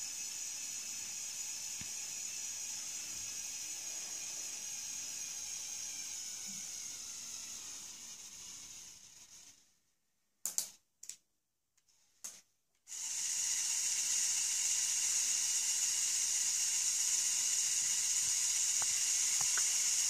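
Motorised Lego Technic 42009 Mobile Crane: its electric motor and plastic gear train whine at a high pitch. The whine winds down and stops about nine seconds in, gives three short blips, then starts again, louder, at about thirteen seconds as the boom is raised.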